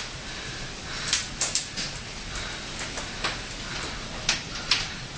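Storm wind from a nearby tornado rushing steadily, with several sharp knocks and clatters.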